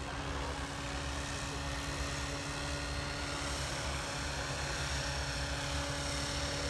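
Electric radio-control helicopter (Synergy E5 with an MD500 scale body) in flight. Its motor and rotor give a steady whine over a low, fluttering rotor thrum.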